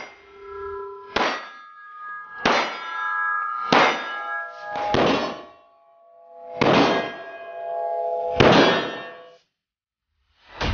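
Seven pistol shots over about nine seconds, each followed by a metallic ringing that lasts about a second and changes pitch from shot to shot.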